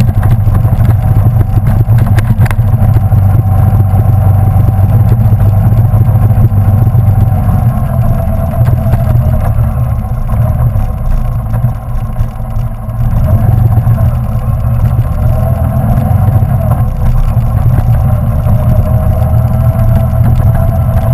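Motorcycle engine running steadily at low road speed, with wind and road rumble. It eases off briefly about halfway through, then picks up again.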